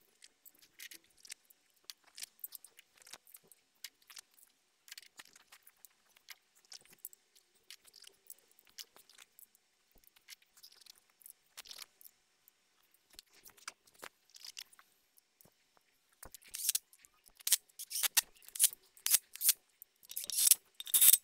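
Faint, scattered clicks and taps of hands working on an engine's oil sump bolts with a threadlocker bottle and tools. A louder, denser run of clicks and rustling comes in the last few seconds.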